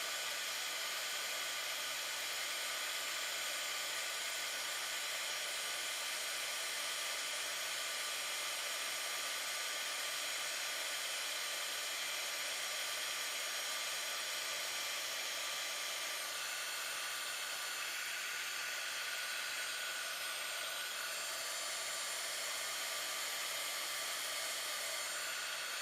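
Heat gun blowing steadily, an even airy hiss, as it heats an earring setting and ear clip to melt low-temperature solder.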